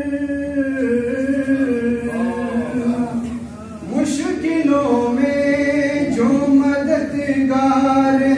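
A male voice chanting an Urdu manqabat (devotional praise poem), holding long drawn-out notes with melodic turns. There is a short breath break about three and a half seconds in, then a new phrase swoops up in pitch.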